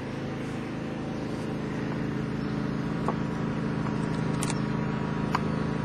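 A steady low machine hum, with a few faint clicks in the second half.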